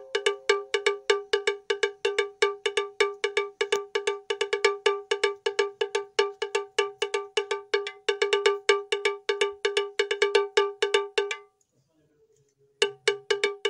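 Background music of a fast, repeated cowbell-like percussion note, about six strikes a second, which drops out for about a second near the end and then starts again.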